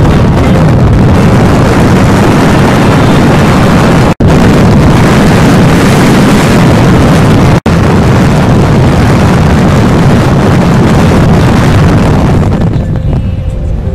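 Heavy wind rush buffeting the microphone of a camera on a moving motorcycle, mixed with engine and road noise at road speed. The noise cuts out completely for an instant twice and eases near the end.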